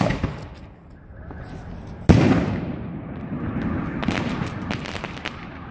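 Aerial firework fired: a sharp pop at the start, then a loud shell burst about two seconds in whose boom rumbles away, followed by a run of crackles as the stars burn out.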